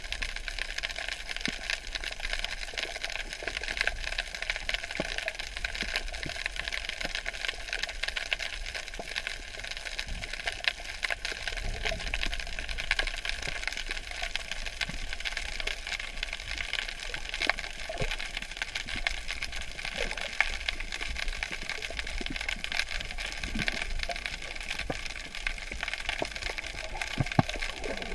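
Underwater ambience picked up by a camera held under the sea surface: a steady hiss full of a dense crackle of faint clicks, with a few sharper ticks now and then.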